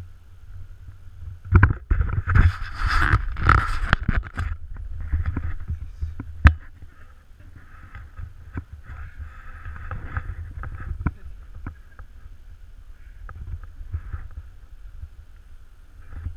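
Round baitcasting reel being cranked against a heavy load on a bent rod, with scattered clicks and rustling handling noise over a steady low rumble and water rush. A louder, scraping stretch of noise comes about two to four seconds in.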